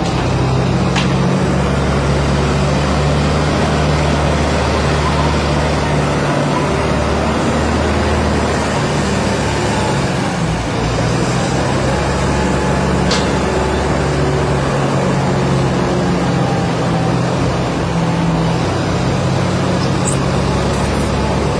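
Heavy diesel earthmoving machinery, chiefly a long-reach excavator, running steadily as it digs and loads, its engine note shifting a little now and then. A few sharp knocks stand out, one about a second in, one in the middle and a couple near the end.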